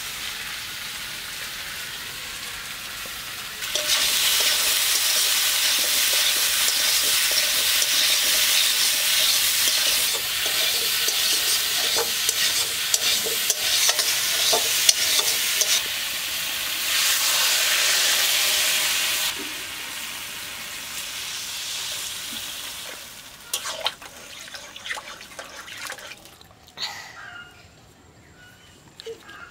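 Pieces of unripe seeded banana sizzling in hot oil in a metal kadai, freshly coated with ginger and green-chilli paste and stirred and scraped with a spatula. The sizzle grows loud about four seconds in, eases off after about twenty seconds, and fades to scattered clicks and taps near the end.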